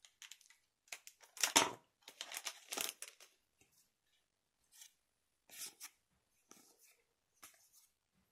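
A trading card booster pack wrapper torn open with a few sharp rips in the first three seconds, then softer brushing sounds as the cards are slid out and flipped through by hand.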